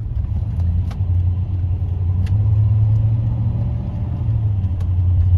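Low, steady rumble of a car's engine and road noise heard from inside the cabin while driving, growing louder over the first couple of seconds as the vehicle picks up speed.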